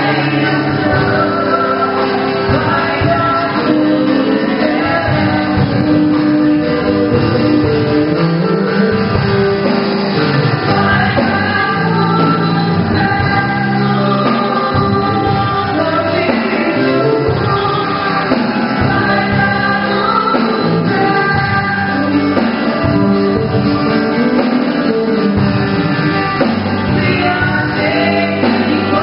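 Gospel worship music: singing over instrumental accompaniment, at a steady, loud level.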